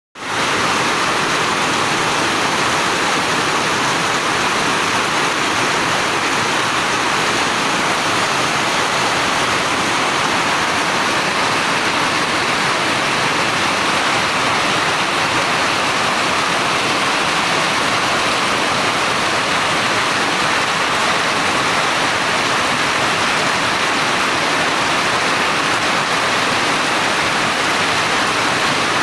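Steady rush of water, an even hiss that never breaks or changes, running at a constant loud level.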